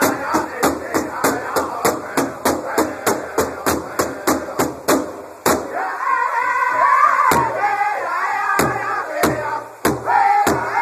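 Powwow drum group striking a large shared drum with long drumsticks in a fast even beat, about three beats a second, with the men singing together. About five seconds in, the steady beat stops after one last stroke; the singing carries on alone, and then single hard strokes come back about a second apart.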